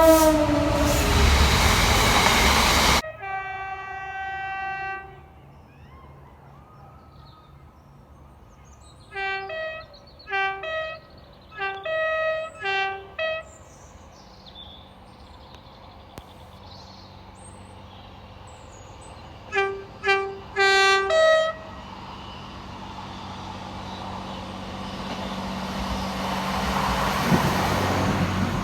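A series of train horns cut one after another. It opens with a loud horn over the noise of a passing train, which cuts off suddenly. A held horn chord follows, then two runs of quick short toots alternating between a low and a high note, played as a little tune. Near the end a train approaches with a steadily rising rumble.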